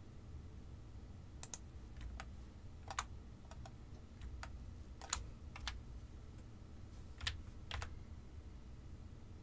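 Scattered clicks of a computer keyboard and mouse, about a dozen separate presses at an uneven pace, over a faint low hum.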